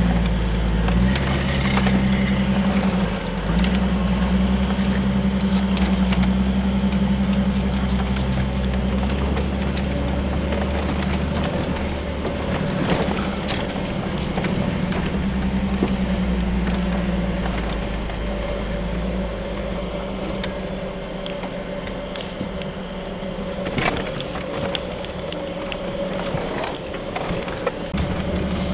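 Jeep Cherokee's engine pulling under load up a steep rocky off-road climb, heard from inside the cab, with scattered clunks and knocks as the tires and suspension go over rocks. The engine note is strongest for the first half and eases off after about twelve seconds.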